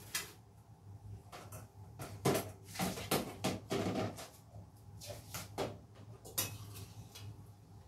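Kitchen handling sounds: pots, a plastic bowl and utensils knocked and set down at a steel sink and stovetop, a dozen or so separate knocks and clinks, thickest in the middle, over a low steady hum.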